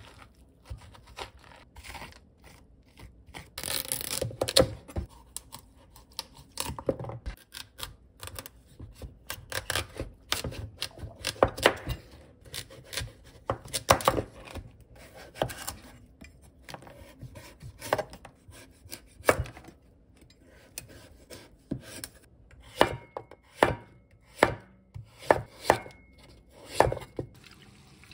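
Preparing a mature pumpkin: scraping out its seeds and stringy pulp, then a kitchen knife cutting through the hard flesh and rind. The knife gives repeated sharp knocks against the cutting board, loudest and most regular in the last several seconds.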